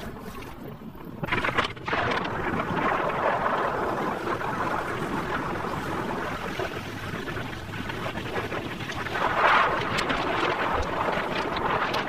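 Wind buffeting the microphone of a phone filming from a moving two-wheeler, mixed with road noise. It gets louder about a second in.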